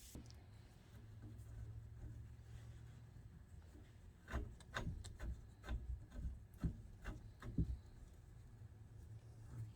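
Hands working on bicycle parts: a series of irregular light clicks and knocks from about four seconds in, over a faint low hum.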